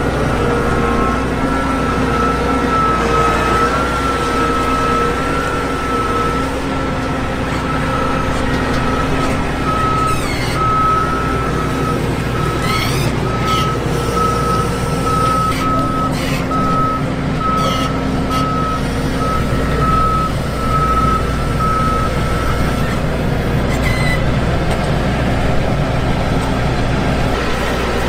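Vishal combine harvester running steadily under load, its engine and threshing machinery making a loud, dense drone. A high-pitched beeping alarm sounds over it, steady at first, then beeping on and off through the middle before it stops.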